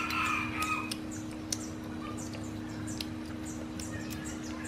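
Birds chirping with short, high, repeated calls and a louder call in the first second, over a steady low hum.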